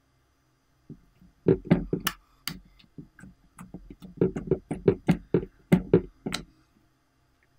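Glitter slime being laid into a glass dish and pressed down by hand, giving a run of irregular sticky clicks and pops. The pops start about a second in and stop shortly before the end.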